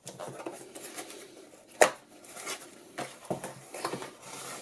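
A small product box being opened by hand: packaging rustling and scraping, with clicks and knocks, the sharpest and loudest about two seconds in.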